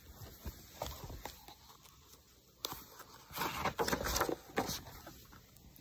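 Faint scraping and rustling from a picture book's page being turned and the phone being handled, with a few light clicks early and a louder stretch of rustling a little past the middle.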